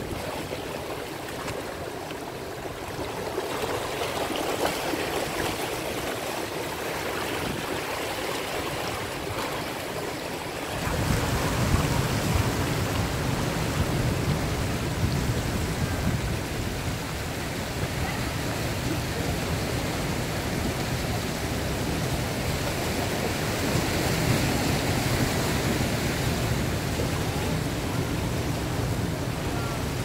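Ocean surf surging and foaming around granite rocks, a steady rushing wash of water. About eleven seconds in the sound turns suddenly louder and deeper, with a heavy low rumble added.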